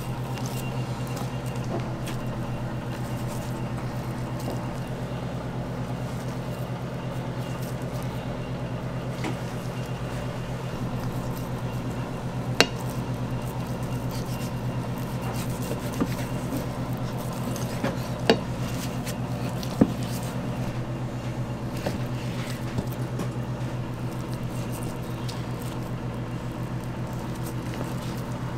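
A steady low mechanical hum, like kitchen machinery running, with a handful of sharp knocks in the middle stretch: a knife striking a plastic cutting board while raw beef is trimmed.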